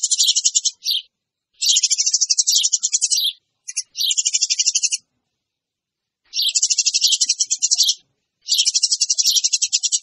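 Eurasian tree sparrow chatter: rapid, rattling runs of high chirps in phrases of about a second or more, with short breaks and a longer pause about five seconds in.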